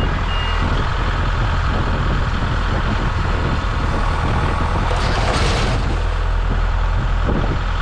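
Tractor engine running steadily while its front-end loader tips a load of debris, with a short hissing rush about five seconds in.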